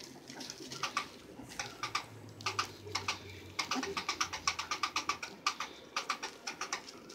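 Litter of young puppies playing and mouthing each other: a run of quick soft clicks and smacks, coming fastest past the middle at about five a second.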